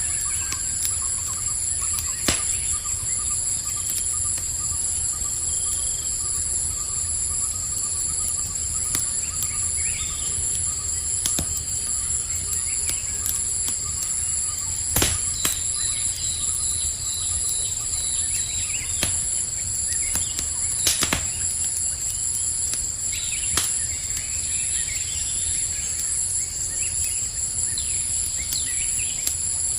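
Campfire crackling, with scattered sharp pops (the loudest about halfway through and again a few seconds later), over a steady, high-pitched, pulsing chorus of crickets.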